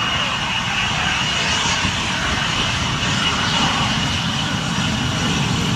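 A de Havilland Vampire T11's Goblin turbojet running while the jet moves along the ground, a steady rush with a constant high whine.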